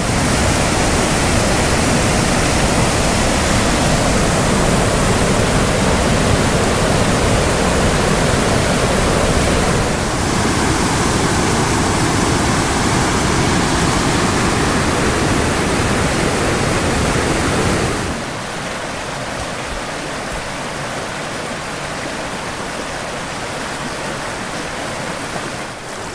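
Water rushing and splashing down the rocky cascades of a small waterfall on a woodland creek, as one steady loud rush. About two-thirds of the way through it becomes noticeably quieter and loses its low rumble.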